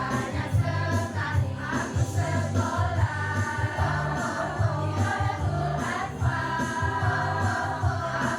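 Choir singing with instrumental accompaniment that has a pulsing bass.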